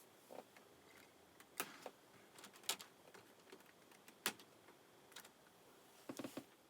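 A few faint, irregularly spaced clicks and taps over a quiet hiss, with a quick cluster of them near the end.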